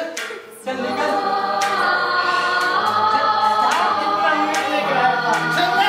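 Song with several voices singing long held notes, starting about half a second in after a brief pause. It is the music for a dance.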